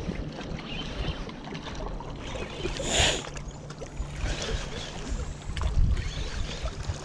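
A cast with a spinning rod: one brief whoosh about three seconds in as the lure is thrown and line runs off the spinning reel's spool. Wind rumbles on the microphone throughout.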